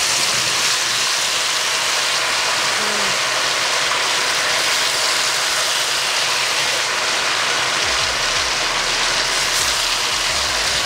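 Potato fries deep-frying in a pan of hot oil, sizzling steadily and loudly: a fresh batch has just gone into the oil.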